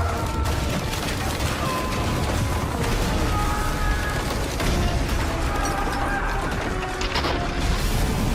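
Music with long held tones over a heavy low rumble, with crashing impacts in the mix, the clearest about seven seconds in.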